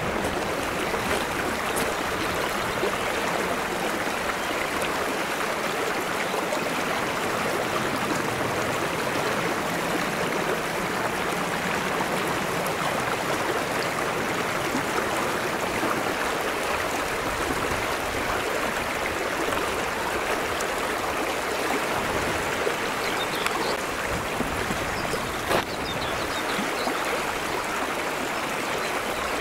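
Shallow mountain stream flowing steadily over flat rock shelves, an even rush of water, with a single sharp click late on.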